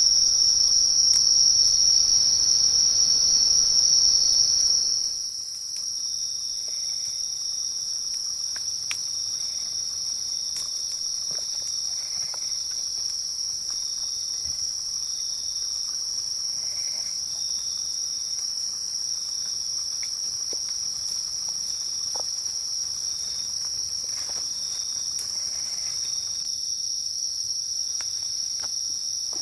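Forest insects chirring in a steady, continuous high-pitched drone. For the first five seconds a louder hiss lies underneath, then drops away, leaving the insect drone on its own.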